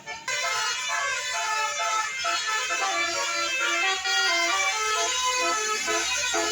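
Bus 'telolet' horn, a multi-tone musical air horn, playing a quick stepped melody of notes that starts suddenly and keeps going.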